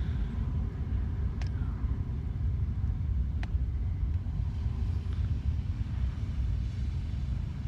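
Steady low rumble of background noise, with two faint clicks about a second and a half and three and a half seconds in.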